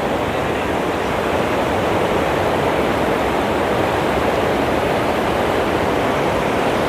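Steady rush of falling water from Athirappilly Falls on the Chalakudy River, an even, unbroken noise.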